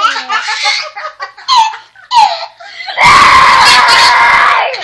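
A baby laughing in short choppy bursts. About three seconds in, a boy lets out a long, loud held scream that lasts under two seconds and trails off at the end.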